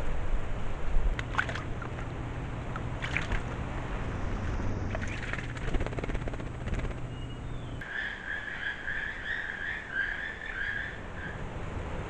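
Outdoor ambience with a low steady rumble and a few short scratchy sounds; the rumble stops about eight seconds in. Then comes a wild animal's rapid warbling call, repeated quickly for about three seconds.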